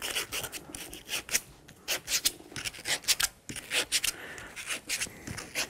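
Sandpaper rubbed by hand over a wooden board and into its drilled holes in short, quick, irregular scratching strokes, smoothing off the sharp edges.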